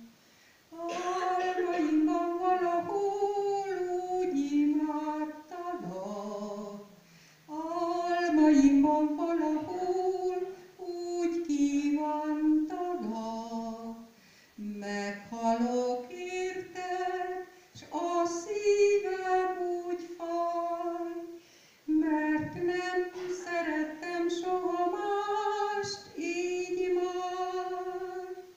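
A woman singing a Hungarian song solo and unaccompanied into a handheld microphone, in phrases a few seconds long with short breaks for breath between them.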